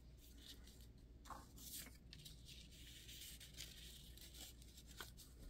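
Near silence with a few faint rustles of paper and an envelope being handled.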